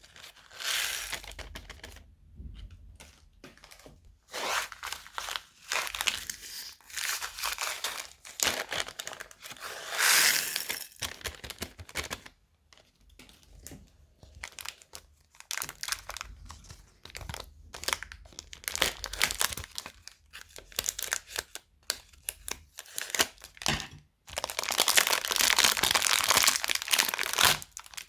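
Plastic bags and foam bricks being crinkled, torn and crunched by hand while being made into slime. It comes in irregular bouts of crackling with short pauses, and the longest, densest stretch is near the end.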